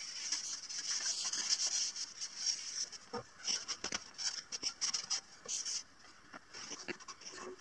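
Cloth rag wiping oil onto a wooden board: hissing rubbing strokes, close and steady at first, then in separate short strokes from about three seconds in.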